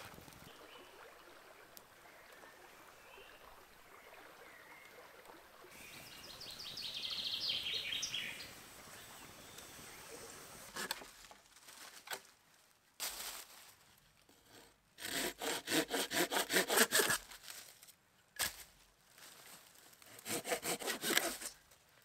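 Small hand saw cutting through a dry dead branch in quick back-and-forth strokes. The strokes come in bursts, the loudest run in the second half and another near the end.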